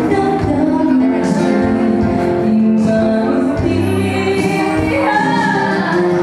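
Live acoustic band music: a woman singing lead, with a man singing along, over acoustic guitar, amplified through a PA.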